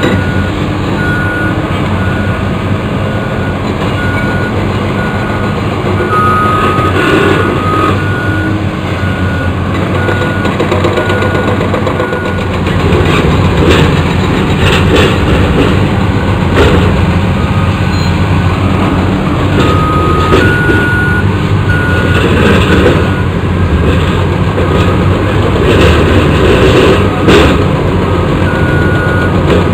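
Several Caterpillar hydraulic excavators running together, their diesel engines growing louder about 12 seconds in, while their demolition shears crack and break up the concrete of an overpass. A backup alarm beeps about once a second, drops out mid-way and comes back near the end.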